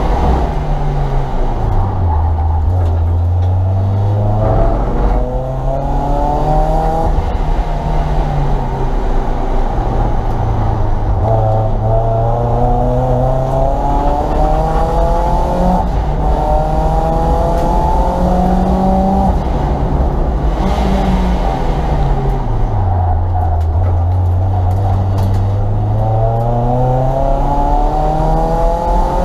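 Renault Twingo engine heard from inside the cabin on a sprint run, revving up hard several times and dropping back between, as it accelerates out of bends and through the gears and lifts off for corners.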